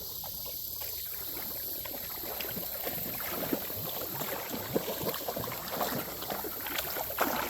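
Shallow creek water splashing and sloshing: many small irregular splashes close together over the creek's steady flow.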